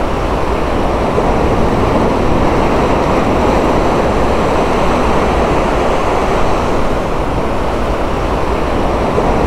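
Steady rushing of sea surf breaking on a sandy beach, mixed with wind buffeting the microphone.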